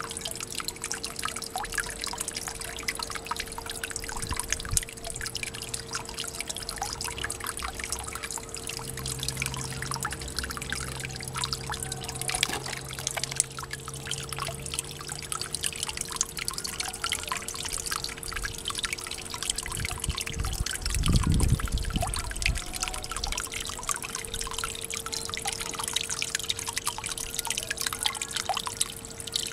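Water trickling and splashing into a small garden pond from a vertical plastic pipe outlet, a constant patter of small drips and splashes, over a steady low hum. A brief low rumble comes about two-thirds of the way through.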